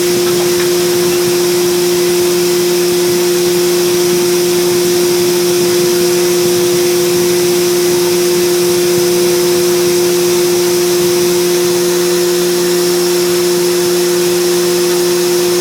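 High-speed CNC milling machine's spindle turning at 15,000 rpm, a loud, steady hum with a constant high hiss above it, while a 0.7 mm ball-nose end mill machines a pattern.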